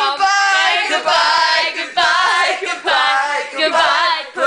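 A small group singing a children's TV show song together, unaccompanied, in long held notes.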